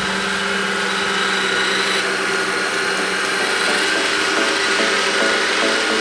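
Vacuum cleaner motor running steadily: an even whir with a constant low hum.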